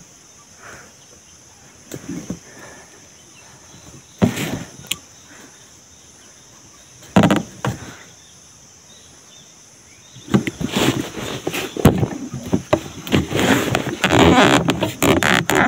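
Irregular rustling and knocking close to the microphone: a couple of short bursts early on, then dense, continuous handling noise from about ten seconds in. A steady high-pitched drone sits underneath throughout.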